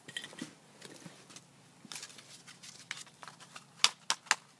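Scattered light clicks and knocks, then three sharp, louder clicks in quick succession near the end.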